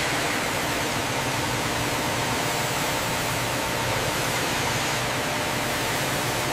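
CNC milling machine cutting a metal block under flood coolant: a steady, even hiss of spraying coolant with faint steady tones from the machine underneath.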